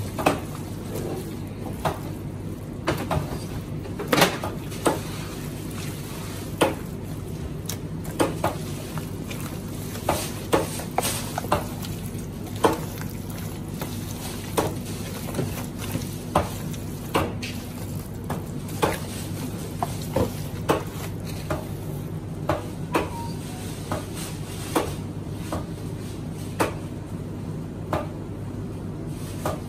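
A gloved hand kneading and turning marinated lamb steaks in a plastic basin: irregular wet slaps and knocks of meat against the basin, about one or two a second, over a steady low hum.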